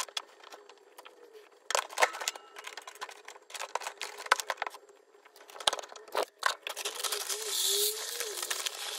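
Scattered rustles and clicks as fabric bedding and cage parts are handled. About seven seconds in, a steady hiss begins as granular corn litter pours from a bag into a plastic litter tray.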